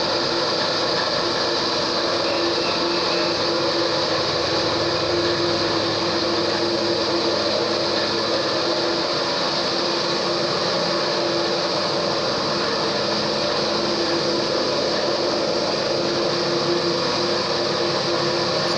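Steady whirring noise of a running machine with a constant humming tone that never changes in pitch or loudness.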